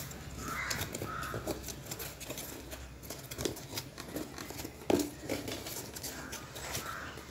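Corrugated cardboard shipping box being opened by hand: flaps pulled back and the box handled, with rustling, scraping and a few sharp knocks, the loudest about five seconds in.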